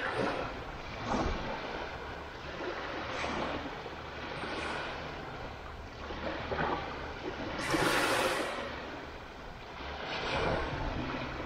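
Waves washing in and receding every second or two, with wind noise on the microphone and a steady low rumble underneath; the loudest wash comes about eight seconds in.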